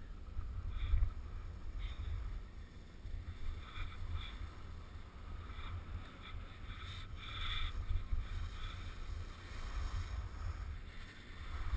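Wind buffeting an action-camera microphone during a downhill ski run, a gusting low rumble. Brief hisses of skis scraping the snow come through now and then, the longest about seven seconds in.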